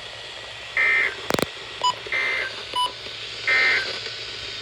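NOAA Weather Radio SAME end-of-message signal: three short, loud bursts of data tones about 1.4 s apart, marking the end of the flash flood warning. A sharp click falls between the first and second burst.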